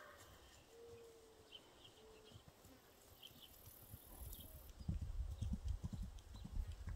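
Hoofbeats of a young Appaloosa filly trotting over dry pasture ground: dull thuds that start about four seconds in and grow louder as she comes close.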